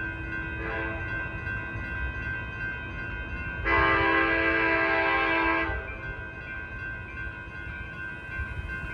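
Horn of an approaching Altamont Corridor Express commuter train sounding for the grade crossing: a brief, quieter toot about a second in, then one loud blast of about two seconds near the middle. Under it, the railroad crossing bells ring steadily.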